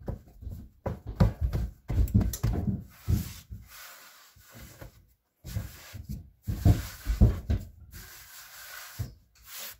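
Hands patting and pressing a slab of flour, salt and water hardtack dough on a floured wooden board, squaring up its edges: irregular thumps on the board with rubbing and brushing in between.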